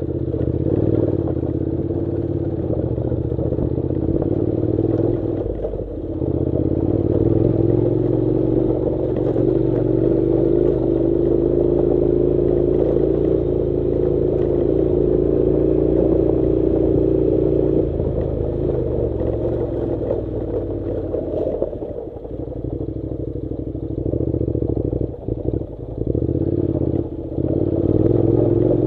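Honda NC700's 670 cc parallel-twin engine running steadily while riding slowly over a gravel track, with stones and loose parts clattering. The engine note dips briefly a few times near the end as the throttle eases.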